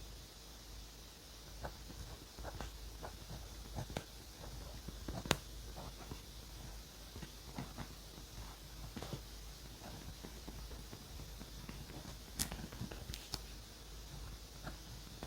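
Close-up desk sounds of journaling on paper: light scratching and rustling with scattered small taps and clicks, a sharper tap about five seconds in and another about twelve seconds in.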